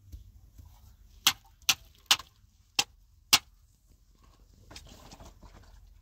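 Five sharp knocks at uneven intervals over about two seconds, followed near the end by faint rustling and light clicking.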